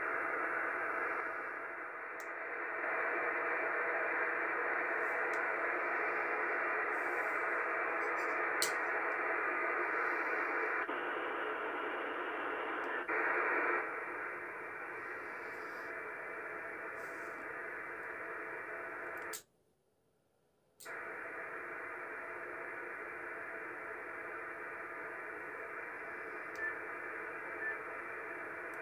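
Steady receiver hiss and static from a Yaesu FT-450D's speaker on the 11-metre band. It cuts out completely for about a second and a half about two-thirds of the way through, with a few faint clicks.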